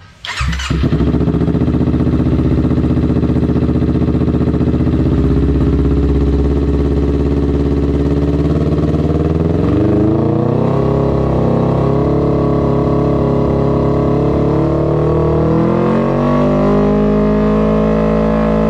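Kawasaki Ninja 250 parallel-twin engine breathing through an R9 GP SS aftermarket exhaust, starting up with a short burst right at the start and then idling steadily; the idle drifts up a little partway through.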